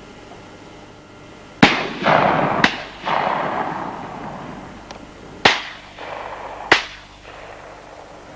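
Shotgun shots: four sharp reports in two pairs, the shots in each pair about a second apart, each report trailing off in a rolling echo.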